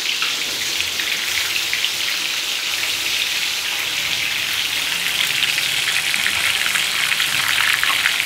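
Coated soya chunks deep-frying in hot oil: a dense, steady sizzle made of many fine crackles, growing a little louder about five seconds in.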